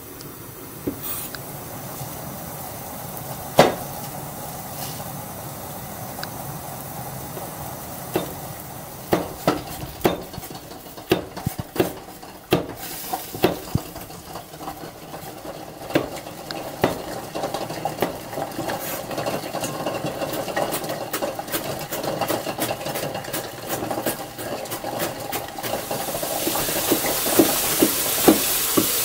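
Chef's knife chopping vegetables on a plastic cutting board: irregular knocks of the blade on the board, sparse at first and coming thick and fast in the second half. A steady hiss comes up near the end.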